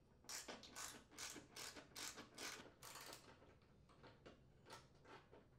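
Faint ratchet clicking from a half-inch socket wrench unthreading nuts off the mower deck's deflector mounting bolts, in quick back-and-forth strokes about two or three a second, growing weaker about halfway through.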